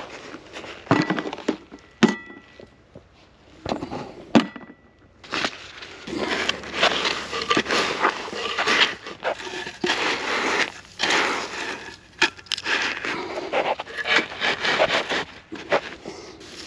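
Glass jars knock together twice with a short ringing clink. Then driftwood planks are set down and shuffled on a beach of crushed shells and pebbles, the shell gravel crunching and scraping under the wood.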